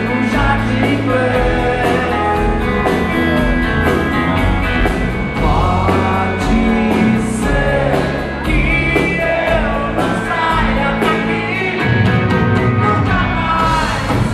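Live rock band playing a song: a man sings lead over electric guitar and a drum kit keeping a steady beat.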